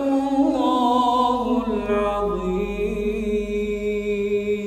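A male Quran reciter's voice holding one long chanted note in melodic tajwid recitation, the pitch stepping down about two seconds in and then held.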